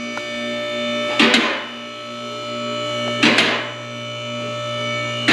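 Background music: a sustained chord with a swelling crash about every two seconds.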